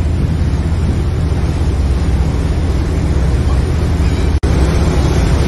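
A boat's engine drones steadily under the rush of its churning wake, with wind buffeting the microphone. The sound cuts out for an instant about four seconds in.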